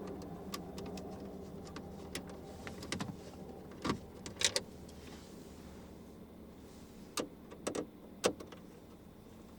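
Scattered light clicks and taps of a Torx screwdriver working the screws that hold a car radio in the dash, about eight in all with the loudest in the second half, over a faint steady hum.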